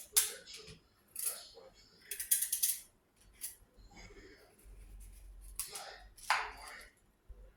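Pumpkin being worked by hand with a kitchen blade: a handful of short, irregular scraping strokes, with a quick cluster of them a little over two seconds in.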